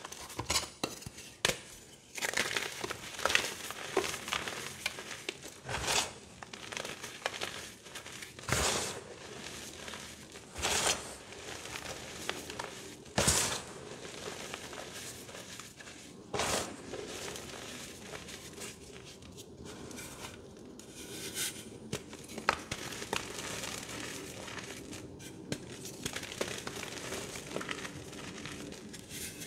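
Hands squeezing and crumbling soft, dusty reformed gym chalk: gritty crunching and powder sifting through the fingers, with sharper crunches every two or three seconds in the first half and steadier crumbling after that.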